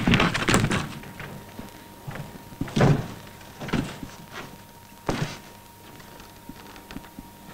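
A handful of short, dull thuds and knocks, about five over the first five seconds, the strongest about three seconds in and again about five seconds in, over a faint steady hum.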